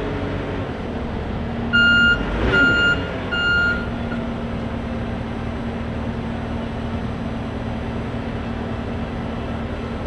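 XCMG XC7-SV12 skid steer loader's engine running steadily while the machine manoeuvres. Its backup alarm beeps three times about two seconds in.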